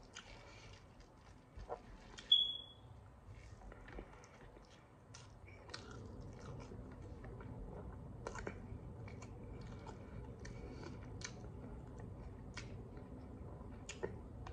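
Close-up eating sounds: rice and fish eaten by hand, with chewing, lip smacking and small wet clicks of fingers and mouth. About two seconds in, a single short high-pitched beep is the loudest sound.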